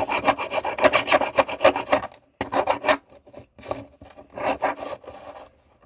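Hand file being pushed back and forth over the edge of a silverware piece held in a miter vise, in quick runs of scraping strokes with short pauses about two seconds in and near the end. The edge is being filed flat and flush with the vise face, with a high spot in the middle still to come down, so that the solder seam will close without gaps.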